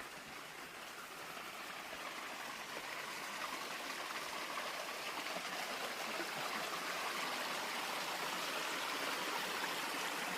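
Stream water flowing, a steady rushing that grows gradually louder.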